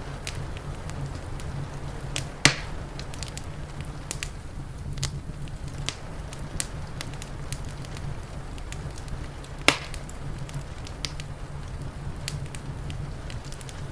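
Wood fire crackling with many small pops and two loud sharp snaps, about two and a half seconds in and near ten seconds in, over a steady low rumble.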